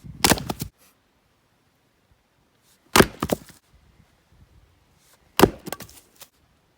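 Helko axe chopping hard zelkova (keyaki) firewood: three heavy blows about two and a half seconds apart, each followed by a few quick cracks of the wood.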